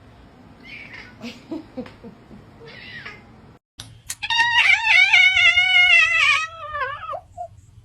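Domestic cat's vocal yawn: a loud, wavering meow about three seconds long that starts about halfway in and slides down in pitch at the end, after a few faint short sounds.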